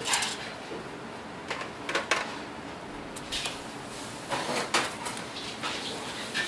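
Cleaver chopping through fried mantis shrimp onto a wooden chopping block: a run of irregular sharp knocks.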